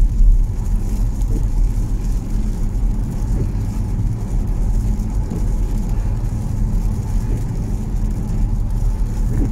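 A car driving on a wet road, heard from inside the cabin: a steady low rumble of engine and tyres.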